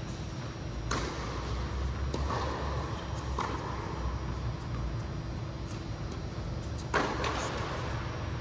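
Tennis ball struck by rackets and bouncing on an indoor hard court: single echoing pops about a second apart, then a louder pair close together near the end, over a steady low hum of the hall.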